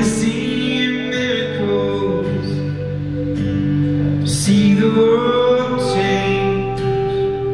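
Live rock band playing a slow song: held guitar chords with a voice singing over them.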